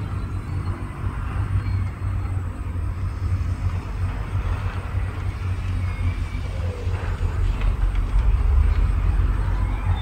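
Heavy diesel earthmoving machinery running: a steady low engine rumble that grows a little louder about seven and a half seconds in.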